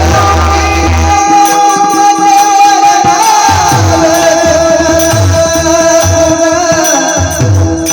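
Devotional-style singing: a voice draws out long, wavering held notes over a steady drone. Pakhawaj bass strokes land about once a second under it.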